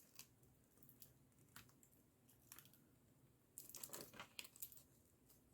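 Faint, scattered small clicks, with a short run of crackly rustling about two-thirds of the way in, from a laptop display's ribbon-cable connector being worked onto its socket by hand.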